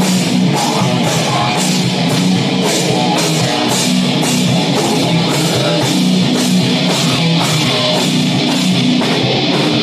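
Death metal band playing live: a heavy distorted guitar and bass riff over a drum kit, with cymbals struck about three times a second.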